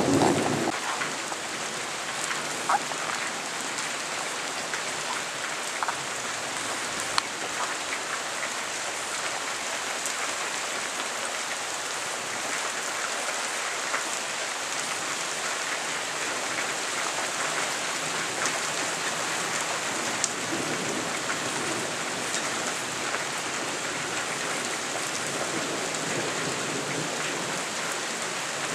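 Steady rain falling, an even hiss with a few scattered sharper drop ticks. The tail of a thunder rumble fades out in the first second.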